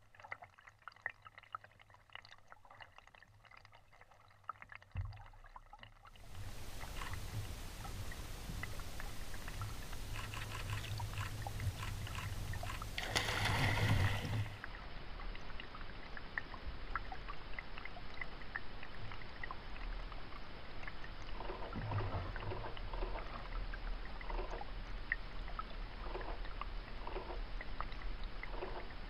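Lake water sloshing and gurgling around a camera held at and just under the surface, with small clicks and bubbling. It starts muffled and quiet, turns into a louder steady wash of water after several seconds, and has a stronger rush of water a little before halfway.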